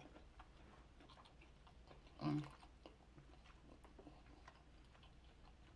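Faint, quiet chewing with scattered small clicks from the plastic fork and the plate. A short hummed "mm" comes about two seconds in.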